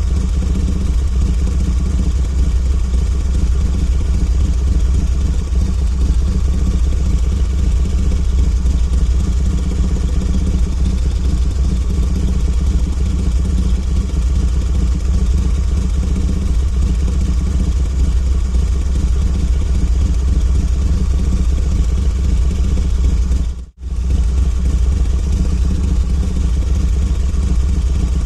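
Harley-Davidson V-twin motorcycle engine idling steadily, with one split-second gap in the sound near the end.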